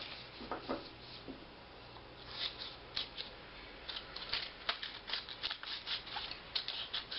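Paper strip being handled and rustled, then small scissors snipping through folded paper in quick repeated cuts from about four seconds in, growing more frequent toward the end.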